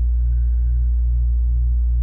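Air conditioning unit running: a steady low hum with a slight beat about three times a second.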